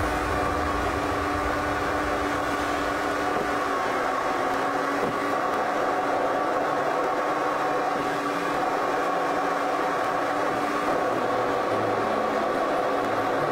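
Car cruising at steady road speed, heard from inside the cabin: an even drone of engine and road noise with a few steady tones and no change in pace.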